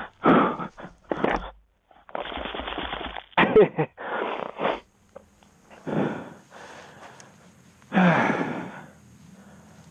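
A fallen rider's heavy, ragged breathing and grunts inside his helmet, a string of loud breaths about half a second each, with a deeper falling groan about eight seconds in.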